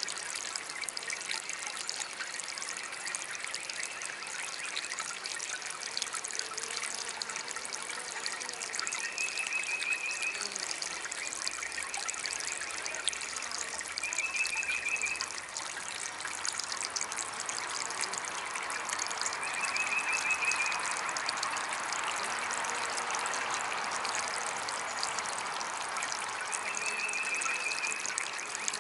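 Small DIY water fountain trickling and splashing steadily, swelling a little louder in the second half. A short high trill sounds four times, roughly every five to six seconds.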